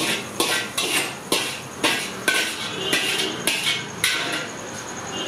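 Metal spatula clanking against an empty wok, about two strikes a second, stopping about four seconds in.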